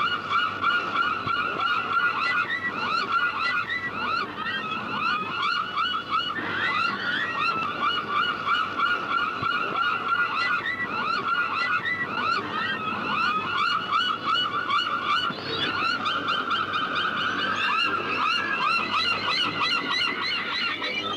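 A flock of seagulls calling: many short, rapidly repeated calls overlapping one another.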